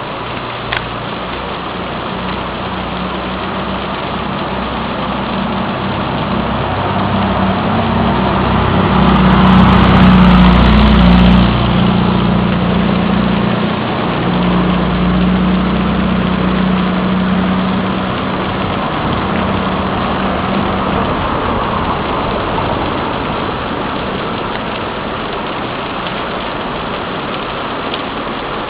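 Steady rain with a vehicle engine running underneath. The engine hum grows louder to a peak about ten seconds in, then slowly fades.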